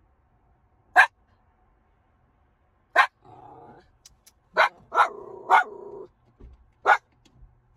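Miniature schnauzer barking inside a car: six sharp barks, the first two a couple of seconds apart, then coming quicker, with short whines between them in the middle.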